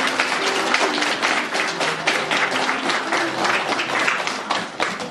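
Audience applauding: dense, continuous clapping from a crowd of spectators, thinning out near the end.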